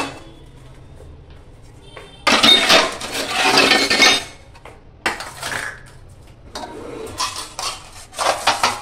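Steel plates and utensils clattering and clinking as they are stacked away on a kitchen rack. The loudest clatter comes in a long burst about two seconds in, with shorter bursts about five seconds in and near the end.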